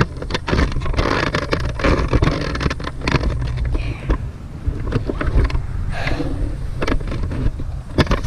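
Rumbling handling noise and wind on a handheld camera's microphone, with many irregular knocks and thumps.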